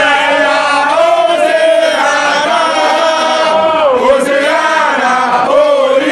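A group of football supporters chanting a song together, loud and close, many voices holding long notes that rise and fall in unison.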